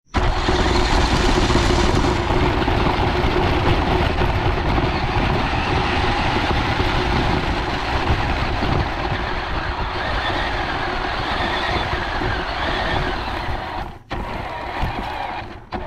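RC model side-by-side driving over grass, heard from a camera riding on it: a loud, steady, noisy rumble of the drivetrain and the chassis shaking over the ground. The sound cuts out briefly twice near the end.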